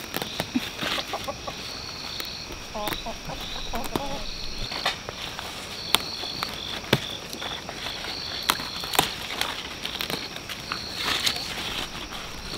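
Chickens clucking, with short calls about three to four seconds in, over a steady high chirping and a few sharp clicks.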